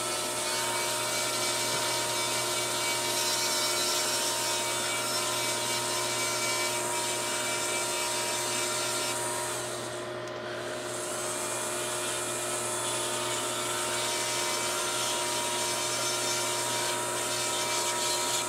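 Foot-pedal variable-speed micromotor rotary tool running with a steady high whine while its bit cleans mold lines and sprue nibs off plastic model-kit suspension parts. About halfway through it slows briefly, then comes back up to speed.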